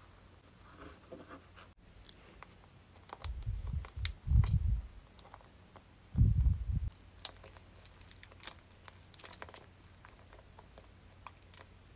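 Hands pressing and handling a clear-tape squishy cube: short crackling and crinkling of the sticky tape, with a few dull low thumps around four and six seconds in.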